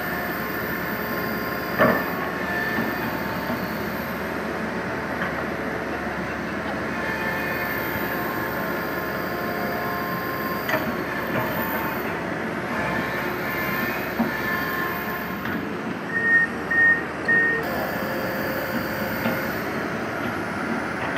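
Komatsu hydraulic excavator running under load as it digs rock and earth, its engine and hydraulics making a steady noise with high whining tones. There are a couple of sharp knocks, one about two seconds in and one near the middle. Three short beeps sound about three-quarters of the way through.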